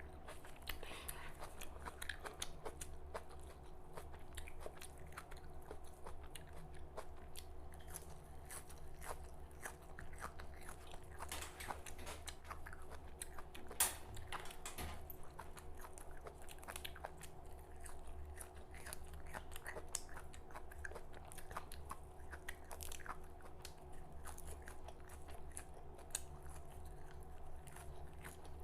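Close-miked wet chewing and biting of raw red amaranth leaves and tomato, a continual run of small crunches and mouth clicks with one sharper bite about halfway through.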